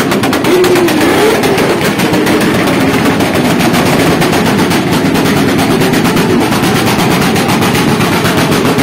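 Motorcycle engines running loudly close by, with a rapid, even exhaust pulse that holds steady throughout.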